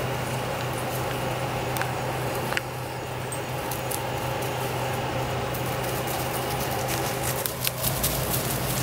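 A steady mechanical hum with faint rustles and clicks of puppies' paws moving over wood-chip mulch. The clicks grow more frequent near the end.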